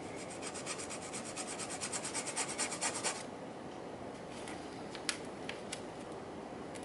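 Thin metal rod rubbed on sandpaper in quick back-and-forth strokes, growing louder for about three seconds and then stopping, as a small model periscope part is hand-sanded. A few light ticks follow.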